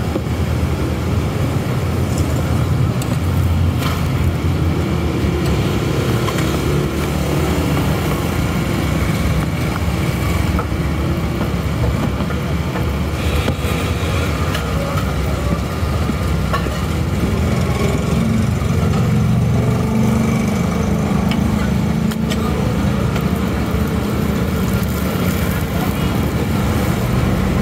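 Steady low rumble of roadside street noise, with voices in the background.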